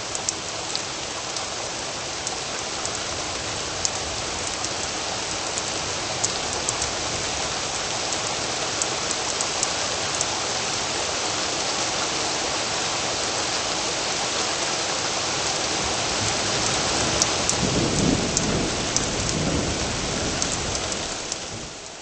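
Steady rain with scattered sharp drop ticks, a low rumble of thunder near the end, then fading out.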